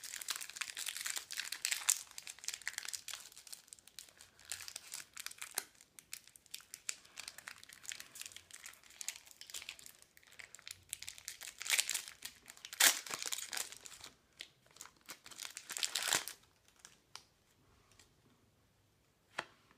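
Foil trading-card booster packet being torn open and crumpled by hand, crinkling and crackling in irregular bursts. The crinkling stops about sixteen seconds in, leaving only a few faint ticks.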